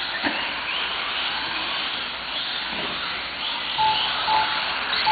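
Several 1/18-scale electric RC cars racing, their motors whining and rising and falling in pitch as they speed up and slow. A few short beeps sound near the end.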